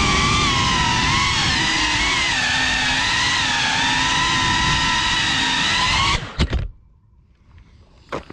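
FPV quadcopter's motors whining, the pitch wavering up and down with the throttle, then cutting off suddenly about six seconds in. A few sharp knocks come as it settles on the road, followed by faint taps.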